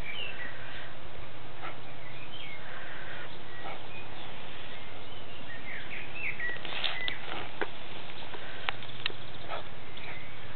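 Short, high chirping calls, a few near the start and a cluster about six seconds in, with several sharp clicks about seven to nine seconds in, over a steady low hum.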